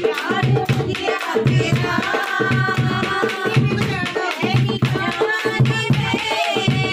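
Dholak, the two-headed barrel drum, played by hand in a repeating rhythm of deep bass strokes, with hands clapping along and voices singing over it.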